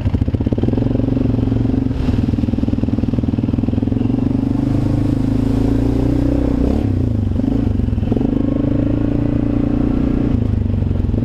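ATV engine running steadily under throttle on a muddy trail ride. The engine note eases and wavers about seven to eight seconds in, then picks back up.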